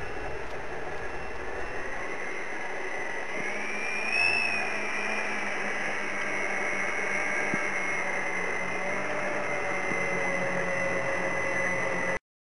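Motors of a radio-controlled Short Solent model flying boat, running steadily with a high whine as it taxis on the water. About four seconds in the pitch and loudness rise briefly, then settle. The sound cuts off suddenly near the end.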